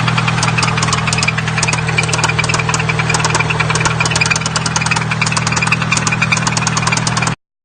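Nissan SR20DET four-cylinder turbo engine idling with a rapid, even ticking knock over its running note; it cuts off suddenly near the end.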